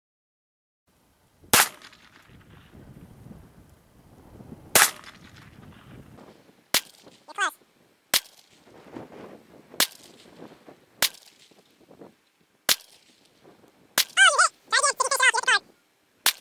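A .22 pistol fired slowly, one sharp crack every one to three seconds, about nine shots in all. A short falling whine follows one of the early shots, and a loud wavering pitched sound comes between the last two shots.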